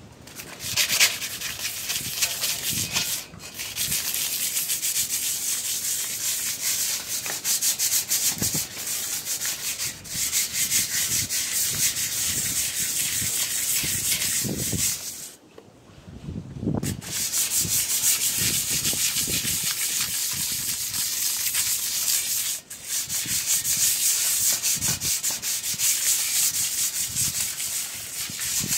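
Wet 1500-grit sandpaper rubbing on a chrome exhaust tip in quick strokes to scrub off surface rust: a steady, scratchy hiss with a few short pauses, the longest about halfway through.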